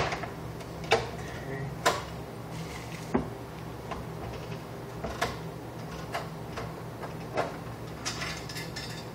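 Sheet-metal fluorescent light fixture being handled: a series of knocks and clicks as the housing is shifted on the table and its metal ballast cover is pried up and lifted off, over a steady low hum.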